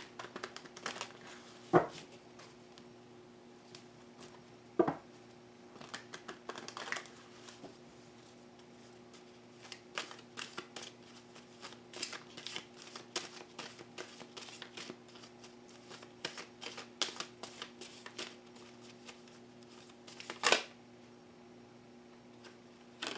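Tarot deck being shuffled by hand: quick clusters of soft card flicks and slides, with a few louder snaps of the deck, about two and five seconds in and near the end.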